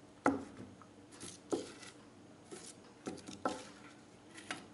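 Small stainless steel bowls of seeds being picked up and set down on a table, giving several light knocks at irregular intervals, the loudest just after the start.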